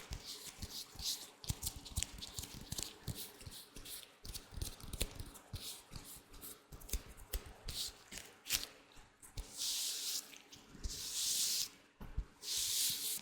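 Latex gloves handled close to the microphone: dense small crackles, squeaks and snaps, giving way near the end to three longer hissing rubs of about a second each.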